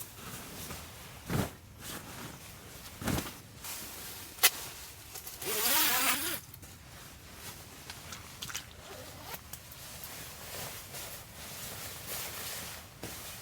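A zipper pulled open or shut in one quick stroke lasting about a second, midway through, after a couple of dull knocks and a sharp click of handling.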